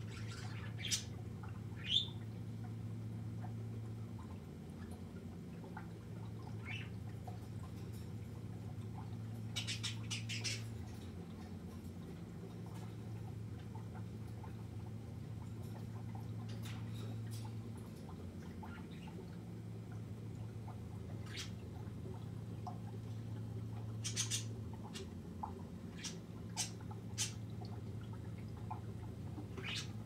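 Pet birds giving scattered brief chirps and squawks, one sliding in pitch, over the steady low hum of running aquarium equipment.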